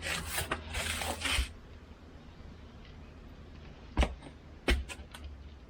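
Hands handling wiring and tools: rustling for about a second and a half, then two sharp knocks and a few light clicks, over a low steady hum.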